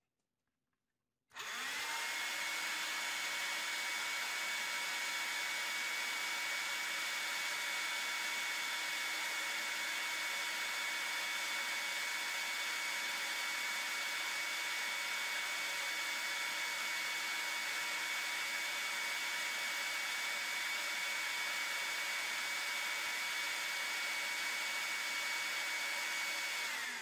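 Cordless vacuum cleaner's motor and fan switched on with the housing opened up: it spins up within a fraction of a second to a steady whine and runs evenly, then winds down near the end.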